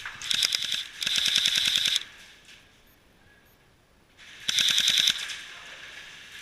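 Airsoft gun firing three full-auto bursts of rapid, evenly spaced shots. The first is short, the second runs about a second, and the third comes about four seconds in.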